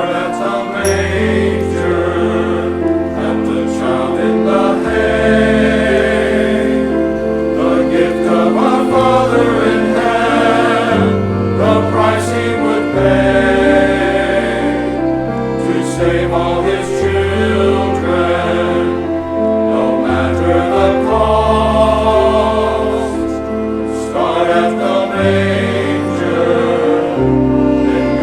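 Church choir singing with instrumental accompaniment, over low bass notes held for a few seconds each.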